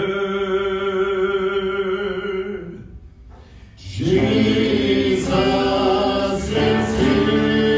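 Worship song being sung. A long held note fades away after about three seconds, and about four seconds in the singing comes back louder and fuller, holding long notes.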